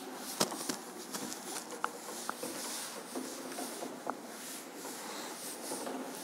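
Cloth duster wiping chalk off a chalkboard: soft, faint rubbing with a few sharp light taps scattered through it.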